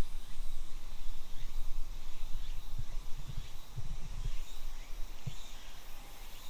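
Outdoor woodland ambience: faint bird chirps and a thin, steady, high insect tone over a low rumble, with a few soft low thumps about halfway through.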